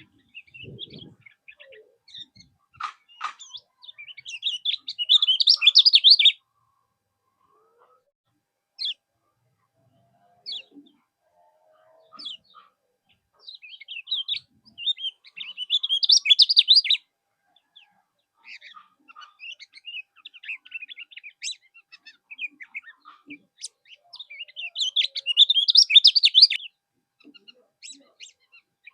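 Kecial kuning songbird singing: three loud bursts of fast, high twittering song about ten seconds apart, with scattered short chirps in between.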